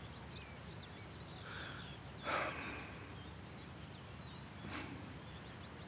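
Quiet outdoor ambience with faint bird chirps, and a person's breathy sigh about two seconds in, with a softer breath near the end.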